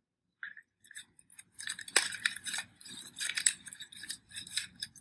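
A marker scribbling on a paper page in quick scratchy strokes, with small taps and clicks. It starts faintly and gets busier from about a second and a half in.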